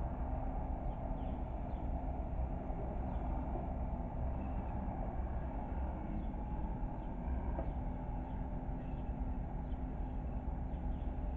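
Bobcat skid steer loader's engine running steadily at a constant speed.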